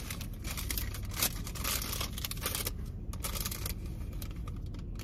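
Rustling and crinkling as small products and their packaging are handled, with irregular light clicks, over the steady low rumble of a car cabin.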